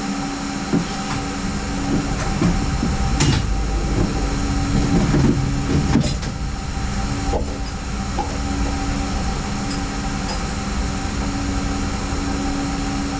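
A steady machine hum runs underneath. Between about two and six seconds in, there are scattered clicks and clattering knocks of alternator parts and tools being handled on the bench.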